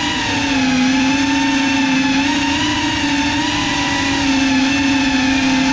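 GEPRC Cinelog35 cinewhoop's motors and ducted propellers in flight, a steady buzzing whine whose pitch wavers slightly as the throttle changes.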